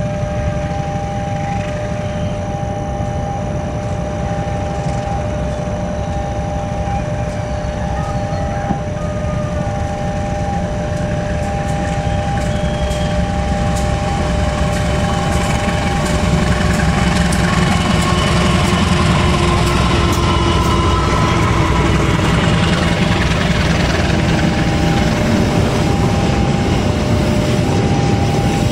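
KAI diesel locomotive and passenger coaches passing on the rails: a steady low engine and rolling rumble, with clicks of the wheels over rail joints, growing louder about halfway through as the coaches come alongside. A steady high-pitched hum runs through it.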